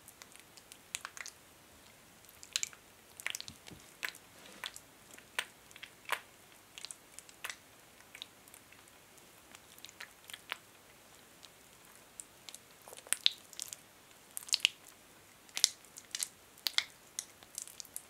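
Thick white hand lotion squelching between palms and fingers as the hands are rubbed, kneaded and squeezed into fists. It is a string of irregular short, wet, sticky clicks and smacks that grow louder in the second half.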